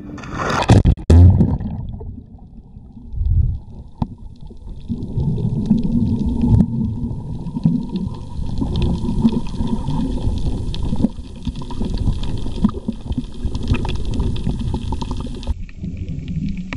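A loud splash as a person jumps into the sea holding the camera, about a second in, then muffled underwater noise from the submerged camera: a steady low rumble.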